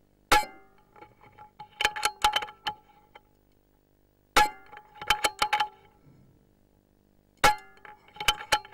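Three shots from an Air Arms S410k .22 air rifle, each a sharp crack with a short metallic ring, spaced about four and three seconds apart. A second or so after each shot comes a quick run of metallic clicks and clinks as the sidelever is cycled to load the next pellet.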